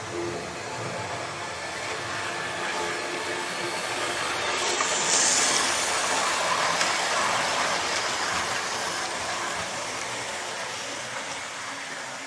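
Model railway diesel locomotive and coaches running on the track, the motor and wheels humming and rumbling. The sound swells as the train passes close, loudest about five seconds in, then fades.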